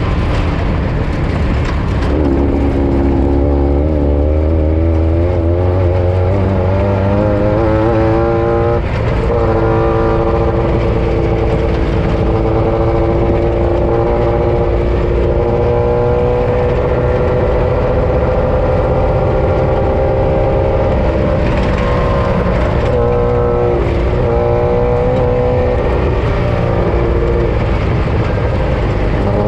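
Off-road race vehicle's engine running hard at race pace over a heavy low rumble. Its pitch wavers up and down with the throttle for the first several seconds, holds fairly steady at high revs through the middle, then drops and climbs again several times near the end.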